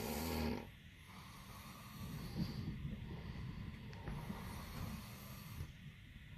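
A sleeping person snoring, with a fluttering snore breath just at the start followed by slower rasping breaths.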